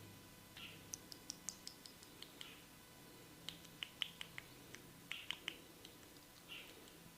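Hands working over hair and scalp during a head massage: faint, scattered small clicks and brief rubbing at an irregular pace.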